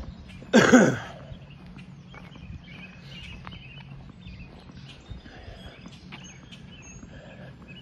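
Footsteps walking on an asphalt road, with birds chirping faintly. About half a second in comes one short, loud vocal sound that rises and falls in pitch.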